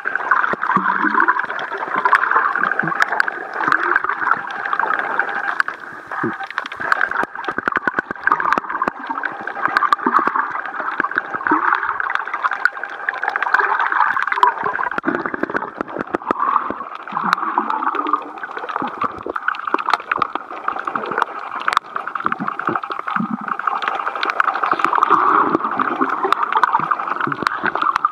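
Muffled underwater sound picked up by a submerged camera while snorkeling: water gurgling and sloshing, with scattered sharp clicks.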